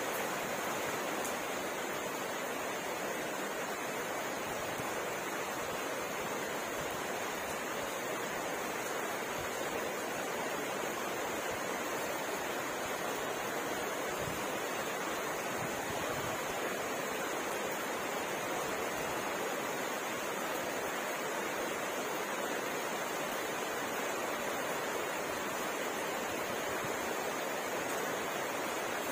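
Steady rain falling: an even, unbroken hiss with no separate drops, thunder or other events standing out.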